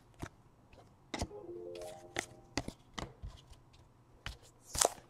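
Trading cards being handled and set down on a table: a string of light taps and clicks, with a brief run of stepped tones about a second in.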